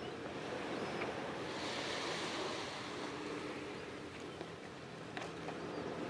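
Small waves washing onto a gravel beach, with wind; the wash swells about a second and a half in, then settles.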